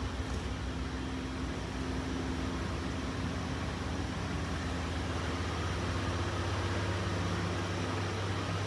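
Steady low mechanical hum with a few faint steady tones and no sudden sounds.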